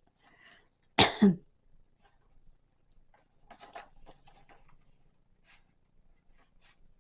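A single sharp cough from an adult woman about a second in, followed by a few faint light ticks and rustles.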